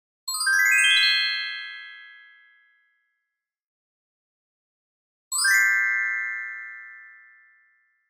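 Magic-spell sound effect: a sparkling flourish of bright, bell-like chime tones that rings out and fades over about two seconds. It plays twice, the second time about five seconds in.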